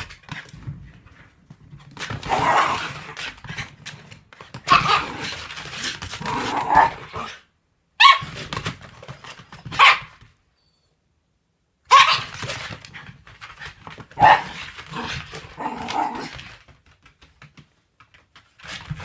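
Elderly Shiba Inu barking in repeated bouts separated by short pauses, with a brief total silence about halfway through.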